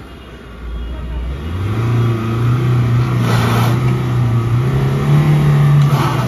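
Mahindra Scorpio SUV engine revving under load in an attempt to drive out of deep sand. The rear wheel spins in place without grip, so the vehicle stays stuck. The engine note starts about a second and a half in and climbs slowly, with two short rushing bursts of flung sand, the first around three seconds in and the second near the end.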